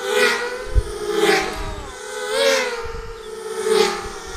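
Motors and propellers of 250 mm FPV racing quadcopters whining steadily, with a swell each time a quad passes close, four times, about every second and a bit.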